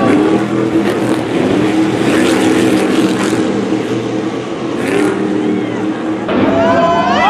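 Stadium Super Truck V8 engines racing past, revving up and down as the drivers accelerate and lift. There is a sharp climb in pitch near the end.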